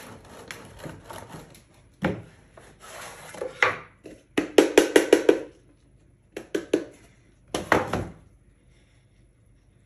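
Parmigiano Reggiano scraped across a hand grater set in a wooden box for about two seconds. Then come hard wooden knocks, a quick run of about five taps near the middle, and a few last knocks as the wooden grater box is lifted and handled.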